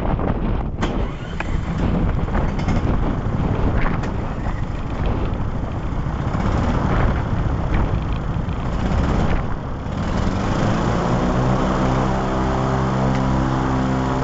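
Strong wind buffeting the microphone, with a few sharp knocks. About ten seconds in, a steady drone with many overtones begins.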